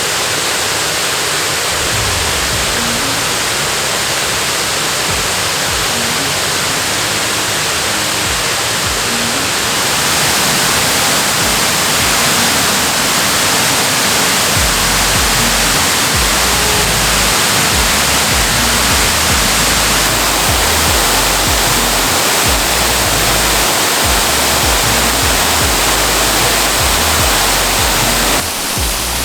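Waterfall rushing in a loud, steady roar of falling water, with background music under it; a low bass line comes in about halfway through.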